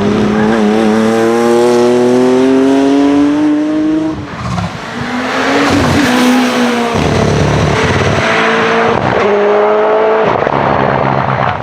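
Hillclimb racing car's engine accelerating hard, its pitch climbing steadily for about four seconds, then dropping at a gear change and climbing and stepping down again through several more upshifts.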